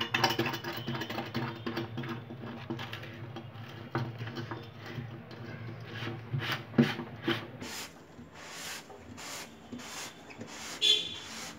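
Hands working a plastic sink waste coupling into the drain hole of a stainless steel kitchen sink: rubbing and scraping of plastic on metal with scattered small clicks. Near the end it turns into short scrapes, about two a second.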